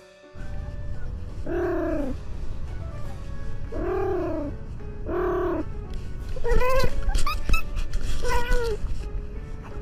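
A cat meowing five times, each call rising and then falling in pitch, the last two higher and sharper, over a steady low rumble.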